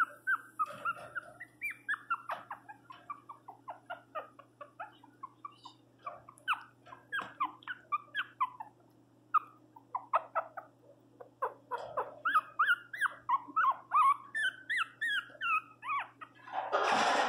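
Pinscher puppy whimpering and crying, a rapid string of short high-pitched yelps that slide up and down in pitch, with a couple of brief pauses. A short loud rush of noise comes near the end.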